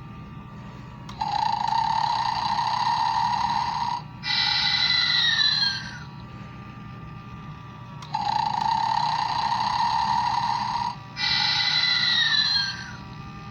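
Gemmy Snoring Santa animated figure playing its recorded snore: twice, a buzzing snore about three seconds long, followed by a whistling breath out that falls in pitch, with a pause of about two seconds between the cycles.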